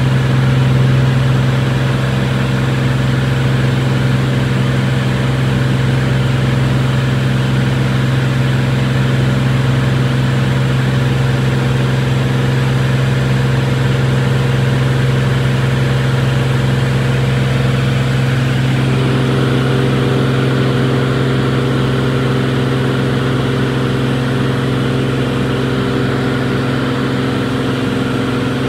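Single-engine Lancair Columbia 300's engine and propeller droning steadily in cruise, heard from inside the cabin. A higher tone joins the drone about two-thirds of the way through.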